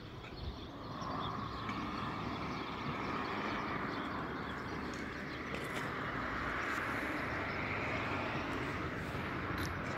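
Steady engine noise from a distant motor, swelling about a second in and then holding, with a few faint clicks over it.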